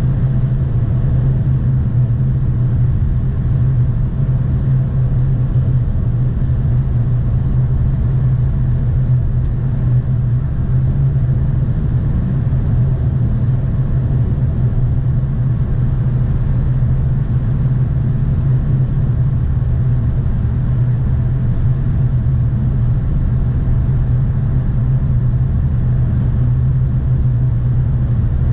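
A car's cabin at steady highway speed: a constant low drone from engine and tyres under a broad rush of road and wind noise, holding even throughout.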